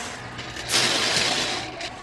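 Metal Slinky coils rattling and jingling as a compression wave is pushed along the spring, a rushing metallic noise that swells about two-thirds of a second in and fades.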